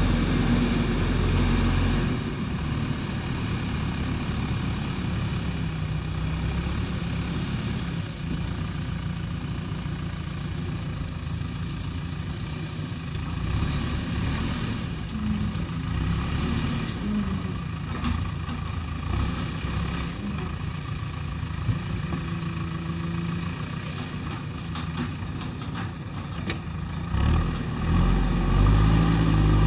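Diesel engine of a JCB backhoe loader running steadily. It is louder in the first couple of seconds and revs up again near the end, with a single sharp knock in the middle.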